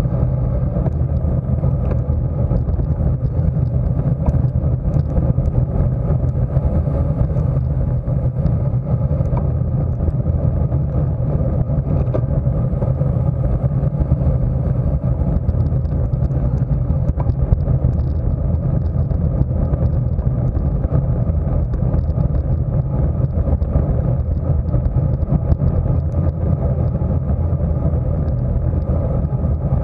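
Wind rushing over the microphone of a camera mounted on a racing road bike, a steady low rumble mixed with tyre noise on the asphalt.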